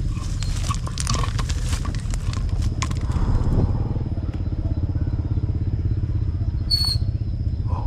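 A small engine running steadily with an even low hum. Scattered clicks and knocks come in the first few seconds, and a short high chirp sounds near the end.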